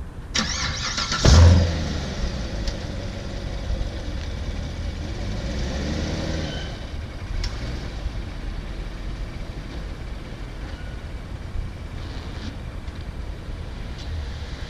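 2014 Chevrolet Corvette Stingray's 6.2-litre V8 starting with a loud flare of revs about a second in, then idling as the car reverses away, the sound fading after about six seconds.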